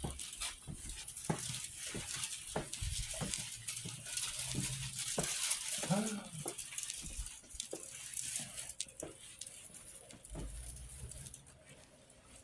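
Footsteps on a hard floor, about one or two a second, with the rustle of a puffer jacket rubbing close to the phone's microphone as someone walks. A brief low-pitched sound about six seconds in, and the steps fade near the end.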